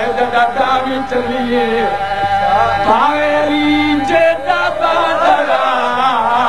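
A man's voice chanting a melodic elegy for Karbala in long, wavering sung lines, over a steady held tone.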